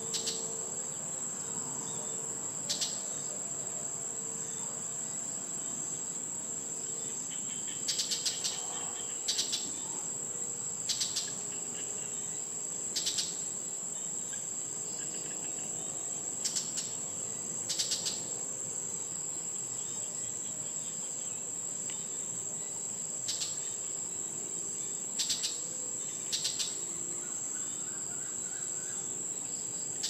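Brown shrike giving short harsh calls every few seconds, some single and some in quick runs of two to four, over a steady high-pitched insect drone.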